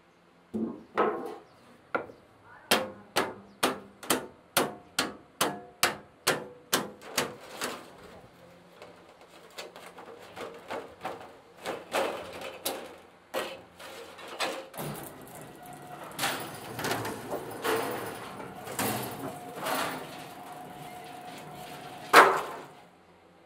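Hand hammer striking sheet steel from an oil drum. A quick, even run of blows comes at about three a second, each with a short metallic ring. Slower, scattered knocks and scraping on the metal follow, and one loud clang comes near the end.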